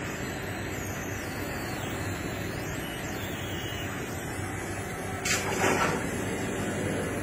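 Steady machine hum from the induction heater. About five seconds in comes a brief, loud hiss and splash: the red-hot steel knife blade is plunged into the quench bath to harden it.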